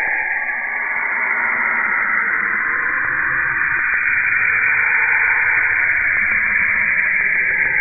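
Saturn's radio emissions, recorded by Cassini's radio and plasma wave instrument and converted to sound: a steady high hiss, with a low hum coming up about three seconds in.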